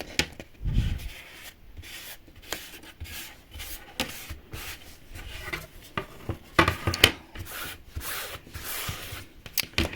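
Fingers rubbing and pressing a sticker down onto a miniature toy wall piece: irregular scratchy rubbing strokes with small taps and clicks, a low thump just under a second in and a sharp click about seven seconds in.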